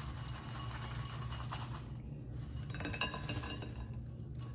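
Seasoned french fries being shaken in a bowl, a dry rattle with light clinks against the dish, in two spells: about the first two seconds, then again around three seconds in. A steady low hum runs underneath.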